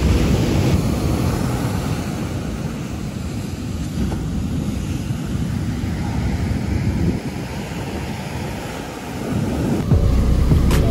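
Ocean surf breaking and washing up the beach, with wind buffeting the microphone. The wind rumble grows heavier near the end, and there is a single sharp click just before it.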